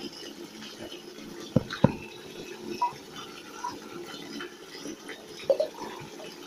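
Water lapping and hands rubbing shampoo into a wet dog's coat in a bath, with two sharp knocks about a second and a half in.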